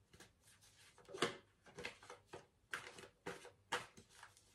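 Faint, soft rustles and taps of tarot cards being handled and laid down, several short separate strokes.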